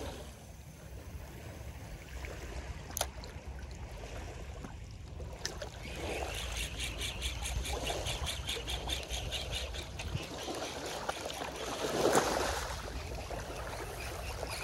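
Small waves washing on a sandy shore under a low, steady rumble. From about six seconds in, a fast, even ticking runs at roughly five a second for some five seconds, with a louder swell of water noise near the end.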